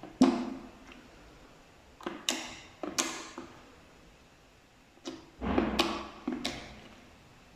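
Slime being squeezed and pressed by hand, giving sharp squishy pops: one just after the start, two a couple of seconds in, and a longer run of squelches about five to six and a half seconds in.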